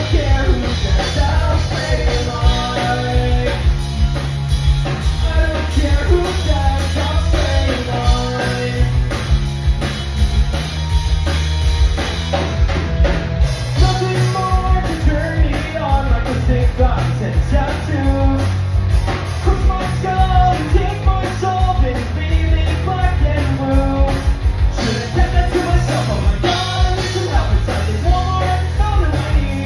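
Rock song with a driving drum kit and a sung vocal line, playing loud and steady.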